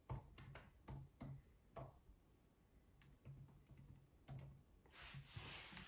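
Computer keyboard keystrokes as a serial number is typed: faint, uneven key clicks in short runs, with a soft hiss near the end.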